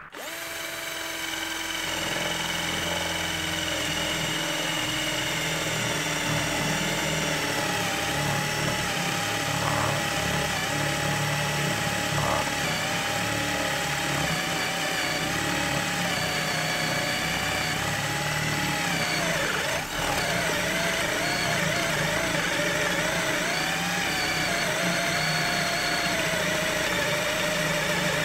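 Counterfeit Bosch GSR 18-2-LI Plus 18 V cordless drill boring into a wooden block with a 20 mm spade bit. Its motor gives a steady whine whose pitch sags and wavers as the bit bites, with a brief dip about twenty seconds in. The drill is struggling, which the user puts down to the bit hitting a knot in the wood.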